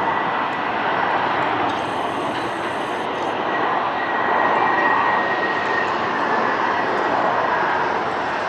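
Delta Airbus A319 on final approach with gear down: the steady roar of its twin jet engines, with a thin fan whine that grows stronger about midway.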